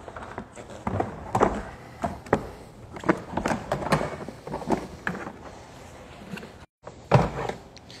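Irregular knocks and clunks of a RIDGID WD1685 wet/dry vacuum's plastic drum and fittings being handled to empty the water it has collected. The vacuum motor is off. The sound drops out completely for a moment near the end.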